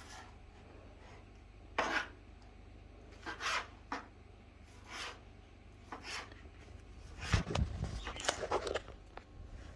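Knife cutting tomatoes on a cutting board: separate cuts a second or so apart, then a quicker run of cuts with a few low knocks on the board about seven seconds in.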